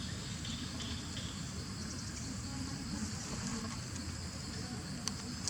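Steady high-pitched drone of insects, with a low rumble underneath and one sharp click near the end.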